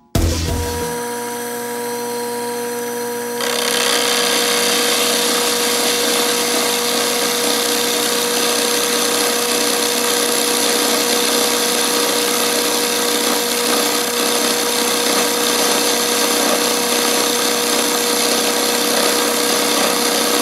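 Sherline milling machine running, its spindle motor giving a steady whine. About three and a half seconds in, the cutter takes the steel test block and a steady, louder cutting noise joins the whine.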